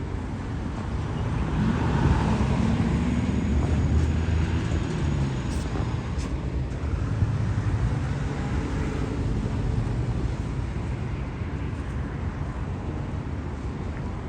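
Road traffic noise: a steady rumble of motor vehicles, swelling as vehicles pass about two to four seconds in and again around eight seconds.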